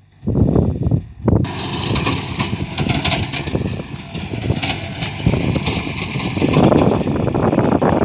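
An engine running loud and rough, which sounds like a rice combine harvester. It chugs unevenly at first, then settles into a loud continuous run with a strong hiss about a second and a half in.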